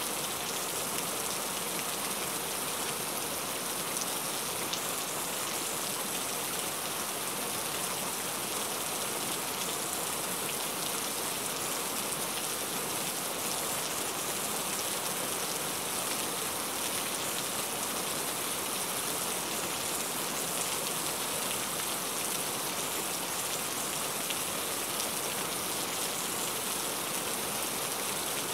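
Heavy rain falling steadily, a dense even hiss with individual drops ticking through it.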